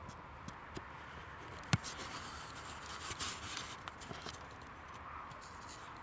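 Soft rustling and handling noise as the camera is turned in the hand, with one sharp click about two seconds in, over a faint steady hiss.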